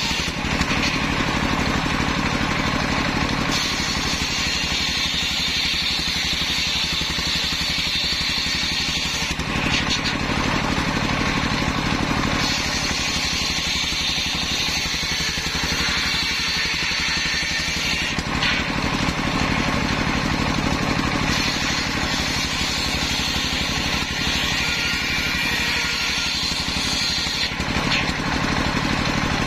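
Engine-driven circular sawmill running steadily while its large blade rips a waru log lengthwise. The higher cutting noise of the blade in the wood comes in three passes of about six seconds each, with the engine and free-spinning blade heard alone in the short lulls between them.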